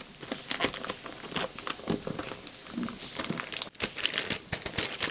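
Plastic mailer bag crinkling and rustling as it is handled and a gift box is slid out of it: a dense, irregular crackle.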